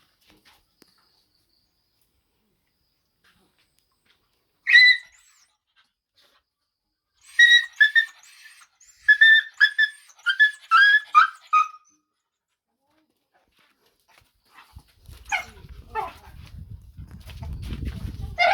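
A puppy yelping in high-pitched cries: one yelp about five seconds in, then a quick run of about eight yelps, the last ones sliding down in pitch. Near the end comes a low rumbling noise with a few more yelps.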